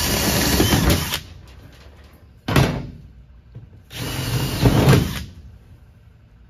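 Power drill drilling out rivets from a race car's sheet-metal body in three short runs: about a second and a half, then a brief burst, then another of about a second and a half.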